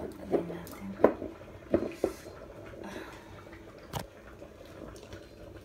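Raw chicken feet being handled in a basin: wet squishing with several sharp knocks in the first two seconds, then quieter, with one more knock about four seconds in.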